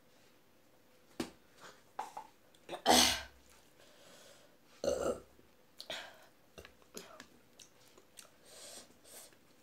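Two loud burps, the first and longer about three seconds in, a second about five seconds in, just after gulping a drink. Soft wet clicks and smacks of chewing and eating by hand come and go between them.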